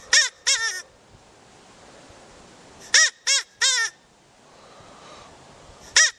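Recorded rabbit calls played on a loop: short rising-then-falling cries in quick groups of three, a group starting about every three seconds.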